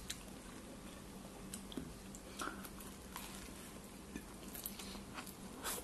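Close mouth sounds of a person chewing and biting into a hot dog in a crunchy bread roll with lettuce: faint, with scattered small wet clicks and smacks. A faint steady hum lies underneath.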